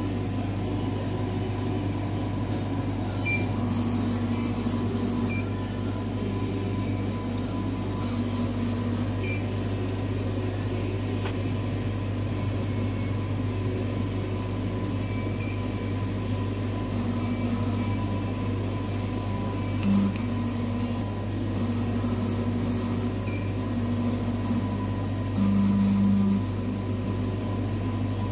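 Cornley K-Lite 3 electrolyte analyzer running a test on a QC sample: a steady mechanical hum with short stretches of a low whirring tone starting and stopping, briefly louder once about 20 seconds in and for about a second near the end.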